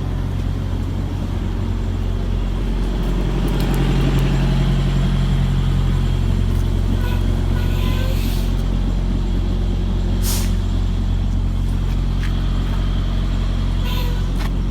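Semi-truck diesel engine running steadily at low speed while backing a trailer, picking up slightly about four seconds in. Short air hisses come about eight and ten seconds in, and again near the end.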